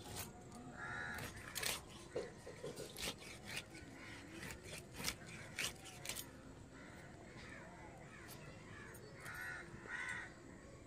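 Pomfret being cut on a bonti blade: a run of sharp clicks and cracks as the fish is pushed through the edge, thickest in the first half. Bird calls come in briefly near the end, a crow among them.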